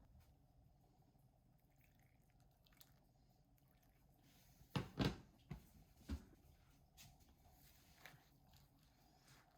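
Quiet room with a short cluster of soft knocks about five seconds in, and a few faint clicks scattered around it.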